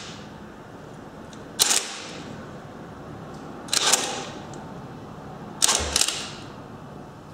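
Cordless drill driving a homemade dog-clutch starter on a Honda ATC three-wheeler's engine in short bursts, about one every two seconds. Each burst of cranking cuts off almost at once as the drill kicks out under the load of turning the engine over.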